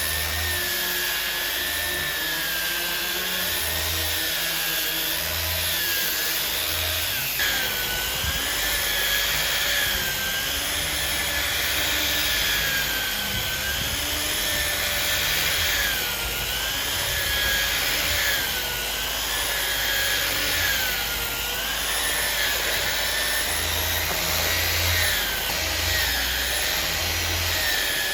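Electric power tool running continuously, its motor whine wavering up and down in pitch over and over.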